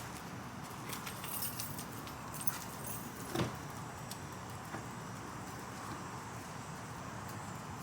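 Faint clicks and a light metallic jingle of small parts being handled, as when swapping a blade fuse in a car's fuse panel, with one sharper click about three and a half seconds in.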